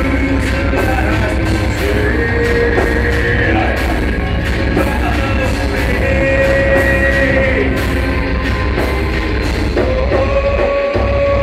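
Live heavy rock band playing loud: electric guitars holding long notes over bass and drums, with regular cymbal hits and a singer's voice in the mix.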